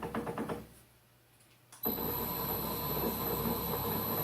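A brief rattle of rapid clicks, then about two seconds in a Holbrook C8 toolroom lathe starts suddenly and runs steadily with a high-pitched whine.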